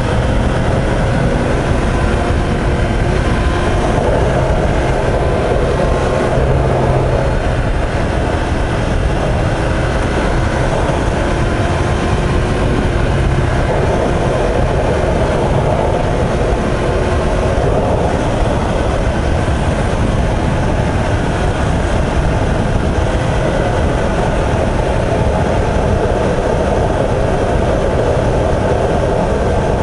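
2016 Yamaha YZF-R1M being ridden at road speed: a steady, loud rush of ride noise with the engine's note running underneath, swelling a few times.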